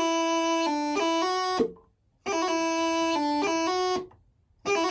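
Bagpipe chanter with no drones playing a short grace-noted phrase (E doubling, D, G grace note up to E, then F) twice, with a brief silence between, and starting it a third time near the end.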